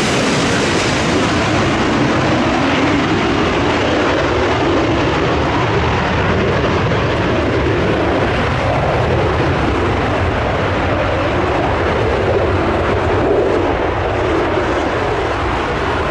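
Airbus A380's four turbofan jet engines, a loud steady rush of jet noise that wavers slowly in pitch.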